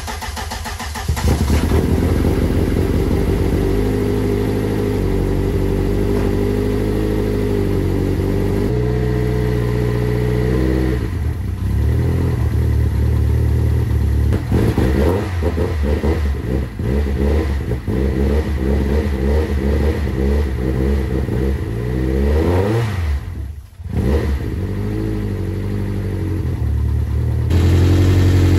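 Rear Vauxhall C20LET 2.0-litre turbocharged four-cylinder engine running just after firing up, held on a little throttle, its speed stepping up and down and from about ten seconds in running with an uneven beat. About twenty-two seconds in the revs rise, the sound drops away for a moment, then it runs on.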